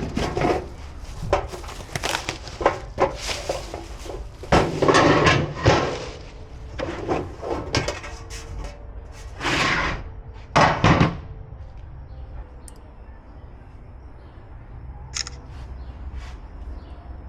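Gas grill parts being handled during assembly: a string of knocks, clunks and scraping, with a few longer sliding scrapes. The handling noise stops about 11 seconds in, leaving only a few faint clicks.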